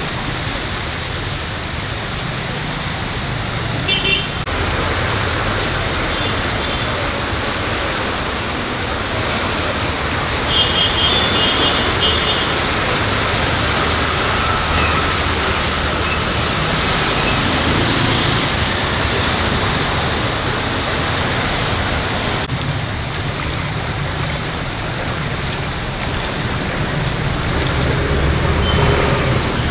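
Steady rushing roar of a swollen, muddy river in flood, with road traffic mixed in.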